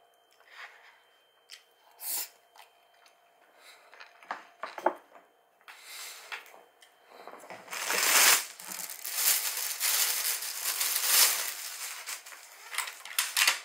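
Sparse light clicks and taps of eating from a paper bowl with chopsticks, then, about halfway, loud crinkling and tearing of paper and plastic packaging as a takeout box of braised side dishes is unwrapped.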